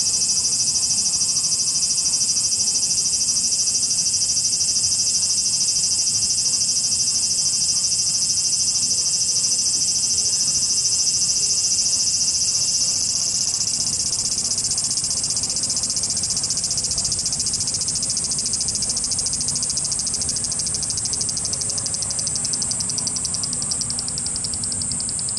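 Cicadas buzzing in a dense chorus: a loud, steady, high-pitched drone that eases a little about halfway through and turns into a fast pulsing toward the end.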